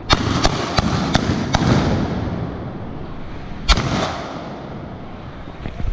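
Black-powder arquebuses firing blank charges in a salvo: five sharp shots in quick succession in the first second and a half, then one louder single shot a little past halfway, and two faint ones near the end.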